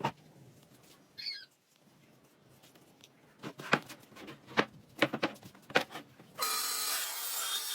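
A short chirp about a second in, then a run of sharp knocks. Near the end a power tool starts up and runs steadily, much louder, with a whine through it.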